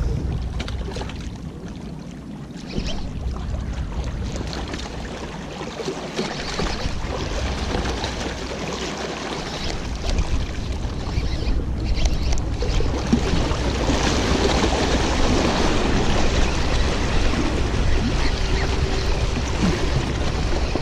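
Wind buffeting the microphone in a steady low rumble, with water washing against shoreline rocks; the noise grows louder about two-thirds of the way through.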